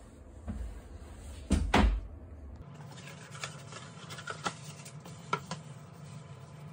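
Two loud, dull knocks about one and a half seconds in, from keyboard kit parts and packaging being handled on a desk. Then soft rustling and a few light, sharp clicks as a keyboard plate in a white wrapping sheet is picked up and handled.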